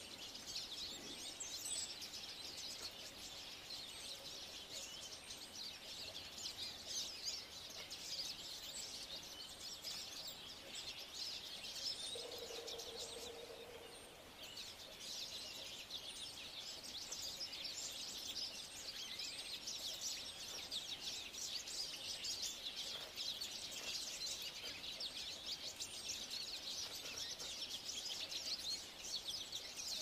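Small songbirds chirping and twittering in a dense, continuous high-pitched chorus. A short, low, steady hum lasts about two seconds a little before halfway.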